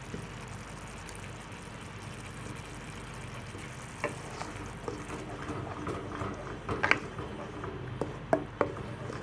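Tomato sauce simmering in a pan, then a wooden spatula stirring it, with scattered taps and scrapes against the pan from about four seconds in.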